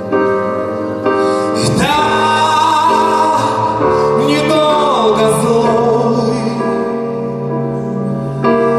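Live performance of a slow song: singing in long held, wavering notes over a sustained keyboard accompaniment, with no words picked out.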